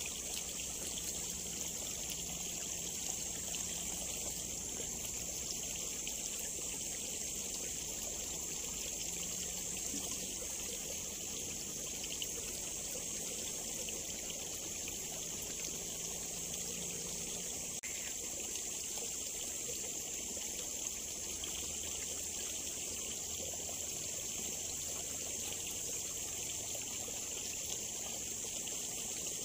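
Small ditch of water trickling and flowing steadily, with a steady high hiss over it.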